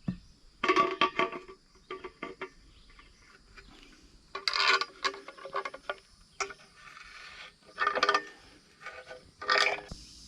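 A series of short, irregular bursts of metallic clinking and rattling, as of tools and hardware being handled, with sharp clicks that ring briefly.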